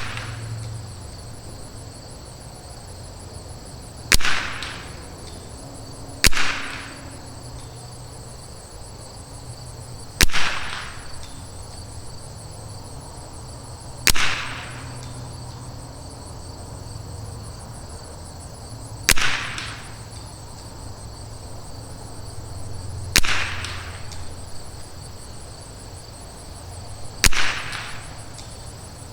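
Seven single shots from a .22LR bolt-action rifle (Rim-X with a Douglas barrel), fired a few seconds apart. Each sharp crack trails off briefly. A steady high chirring of insects and a low wind rumble run underneath.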